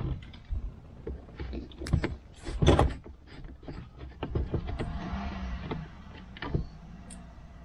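Screwdriver prying at the plastic gear lever surround trim of a Mazda CX-3's centre console: scattered clicks, scrapes and knocks of hard plastic, the loudest about two and a half seconds in.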